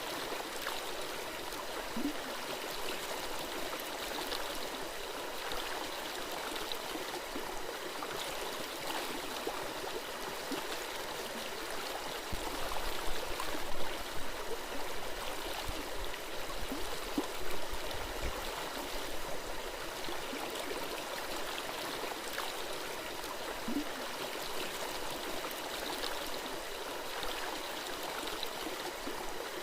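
Forest stream babbling and gurgling steadily. About halfway through come a few louder low thumps.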